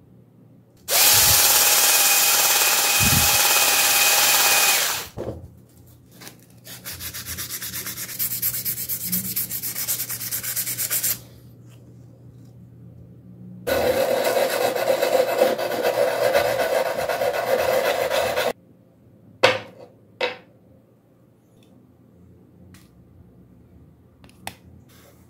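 Abrasive scrubbing on a rusty steel drill bit to strip the rust, in three long stretches. The middle stretch is fast, even back-and-forth strokes. A couple of light clicks follow near the end.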